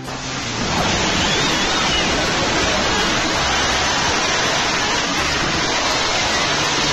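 Angle grinder with a thin cut-off disc cutting steel: a loud, steady rushing noise that builds up over the first second and then holds.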